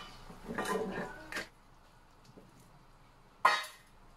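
A wooden spatula stirring saucy chicken pieces in a stainless steel wok: a knock at the start, then about a second of wet scraping and clatter. About three and a half seconds in comes one sharp, loud clatter against the metal pan.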